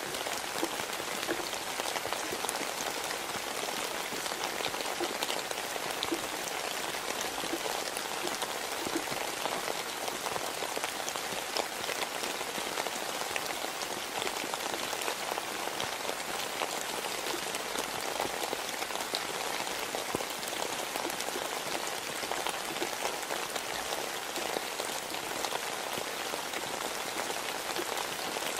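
Steady rain: a constant hiss of falling rain with many scattered individual drop ticks, unchanging in level throughout.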